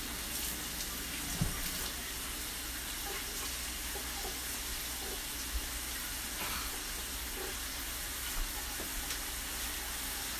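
Ground beef sizzling steadily in a frying pan on a gas burner, with a few faint knocks.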